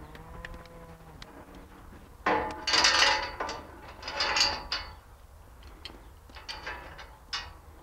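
Steel pipe livestock gate closed and its chain fastened: two bursts of metal clanking and rattling, about two and a half and four seconds in, then a few light chain clinks.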